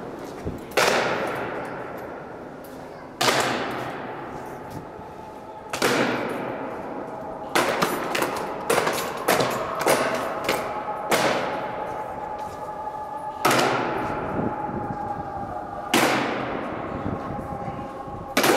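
Honour guard soldiers' boots stamping on a stone floor in a slow ceremonial goose-step march, each stamp ringing with a long echo in the hall. The single stamps come about every two and a half seconds, with a quicker run of several stamps in the middle.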